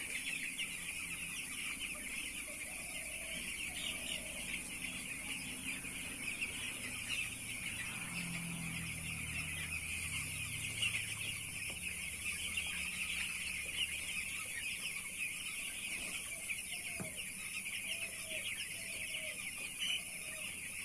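A flock of young chicks peeping continuously, many short high calls overlapping. A steady faint high whine runs under them.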